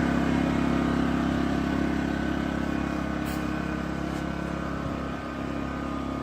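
Pulsar PG2200BiS 2200 W inverter generator engine running at a steady speed, growing slowly fainter with distance. Up close it is noisier than a string trimmer.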